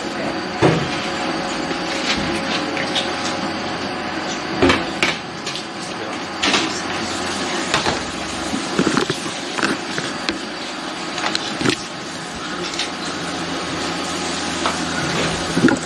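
Steady kitchen background hum, with scattered knocks and clatter as cookware, a mould and cling film are handled on a steel worktop.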